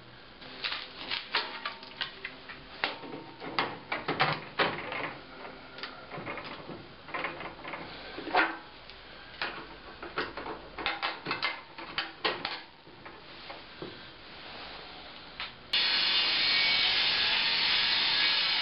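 Scattered clicks and knocks of wood and metal fittings being handled and set on a Mastercraft table saw's steel top. Near the end, a steady loud noise of the table saw running cuts in suddenly and holds for about three seconds.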